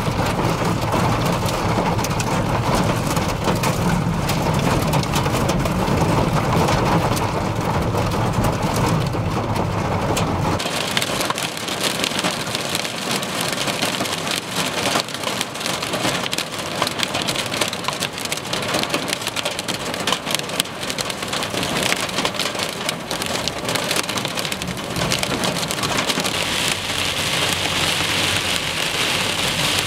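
Torrential rain pelting a vehicle, heard from inside it as a dense, steady downpour full of individual drop impacts. About ten seconds in, a low rumble under the rain drops away abruptly and the rain turns to a brighter crackle.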